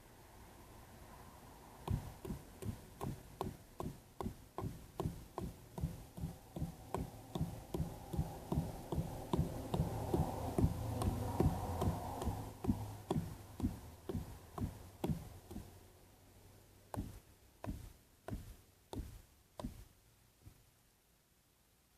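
Repeated sharp knocks, about two to three a second for some thirteen seconds, then a few slower ones near the end.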